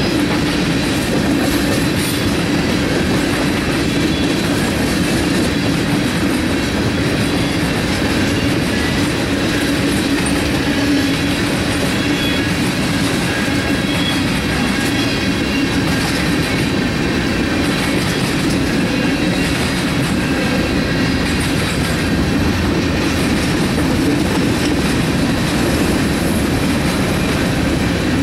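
Freight train cars (tank cars and covered hoppers) rolling steadily past over the crossing, their steel wheels running on the rails at a constant loud level.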